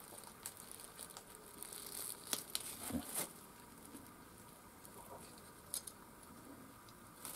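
Faint handling noise from a plastic handheld battery milk frother being turned over and its battery cover worked at: a few sharp plastic clicks, most of them two to three seconds in, with light rustling of plastic packaging.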